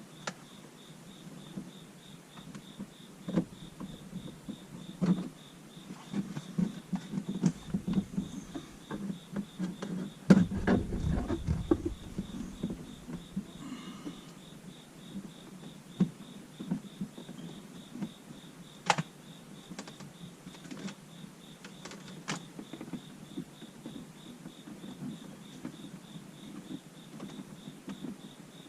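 Handling noises of a dash cam power cable and plastic interior trim being worked by hand: scattered clicks, taps and rustles, with a heavier knocking spell about ten seconds in. A faint, evenly pulsing high tone sits underneath.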